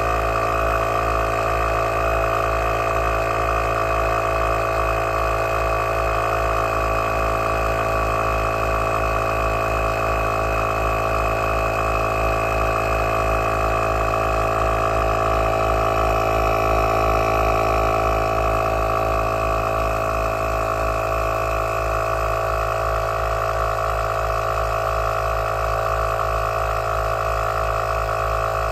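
Heyner Big Air 40-litre 12-volt piston air compressor running steadily under load as it inflates a van tyre: a steady mechanical drone with a fast, even low pulsing from the piston strokes.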